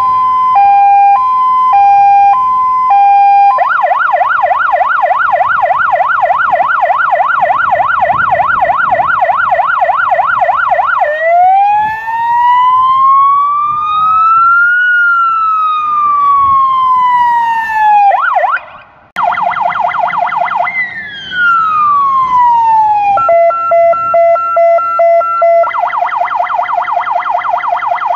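Fire engine electronic sirens run through their tones in turn. First a hi-lo two-tone, then a fast warble, then one slow wail that rises and falls. After a brief break, a second engine's siren gives a fast yelp, falling sweeps, a steady tone and the yelp again.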